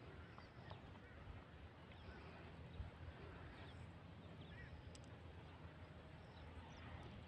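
Near silence: faint outdoor background with a few faint, scattered bird chirps and a click or two.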